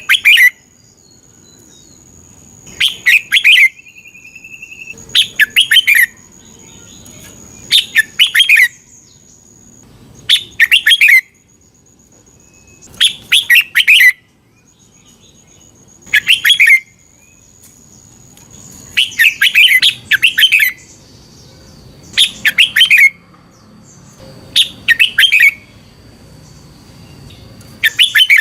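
Red-whiskered bulbul singing: short, rich, warbled phrases about a second long, repeated roughly every two and a half seconds, about eleven times.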